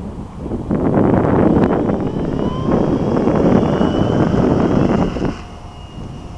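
Wind buffeting the microphone, loud and gusty, easing about five seconds in, over the faint thin whine of a radio-controlled model airplane's engine overhead.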